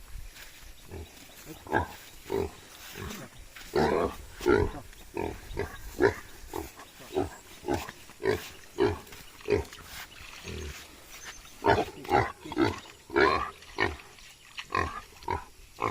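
Farm animals calling: many short, rough calls come in irregular runs, busiest around four to six seconds in and again from about twelve seconds.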